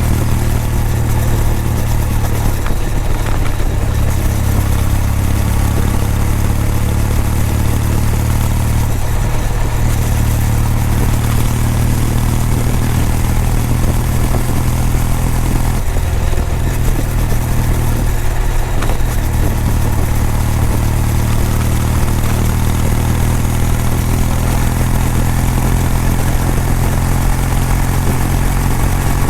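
Kawasaki W800's air-cooled parallel-twin engine, heard through its exhaust, running at steady revs with a low, even note.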